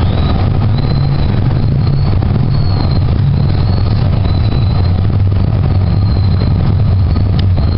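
Calgary C-Train light rail car running, heard from inside the car: a steady low rumble with a faint high whine that comes and goes.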